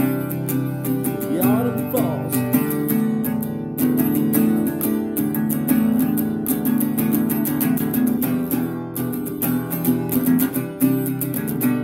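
Acoustic guitar strummed continuously, full chords ringing with each stroke.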